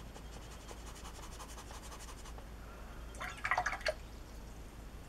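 Watercolour brush scrubbing wet paint onto paper, a soft rapid scratching for about two seconds. A brief louder clatter comes a little after three seconds in.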